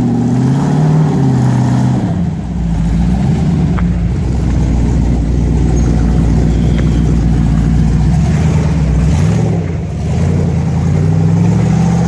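Off-road Jeep's engine revving up and down in repeated bursts as it crawls up a wet rock ledge, with a steady low engine drone underneath.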